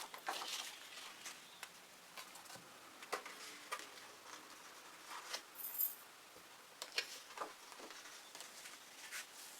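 Faint, scattered small clicks and taps of painting tools and plastic being handled, with a brief high squeak near the middle.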